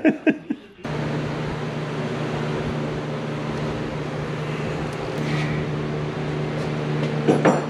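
Scion xA's four-cylinder engine idling steadily with the hood open, an even hum, breathing through an open cone air filter.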